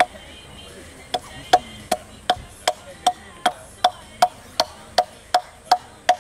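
Hatchet chipping at a piece of wood in quick, regular strokes, about two to three a second, each a sharp knock; there is a pause of about a second just after the start. This is the rough shaping of a carving blank, taken off a little at a time with short strokes from the wrist.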